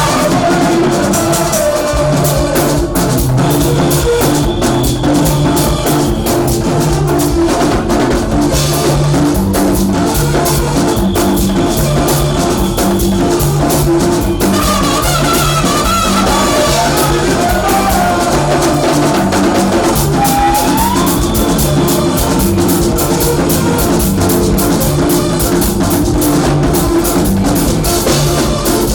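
Band music with a steady drum-kit beat over a repeating bass line.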